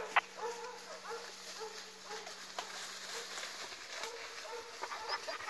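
Hunting dogs barking off in the brush, a string of short barks repeating as the pack starts working boar scent.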